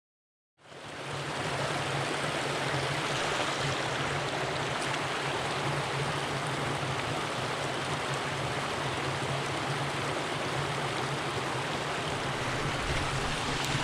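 Small mountain creek's water rushing steadily. It comes in suddenly after a half second of silence.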